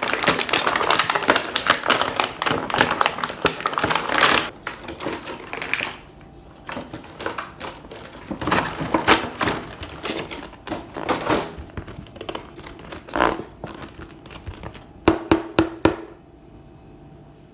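Hard plastic toy and its packaging being handled: dense crinkling and clicking for the first few seconds, then scattered taps and clicks, with a quick run of sharp clicks near the end.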